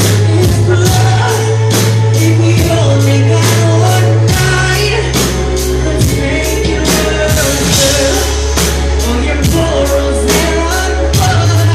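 Loud live band performance with a male lead vocal: a steady drum beat, a heavy bass that shifts to a new note about four seconds in and back near the end, and a sung melody over the top.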